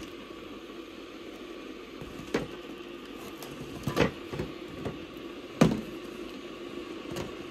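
Lidded rattan basket being opened and closed, with a few short knocks and light handling sounds from the lid and the packets inside, the sharpest knock about five and a half seconds in. A steady hum of room noise runs underneath.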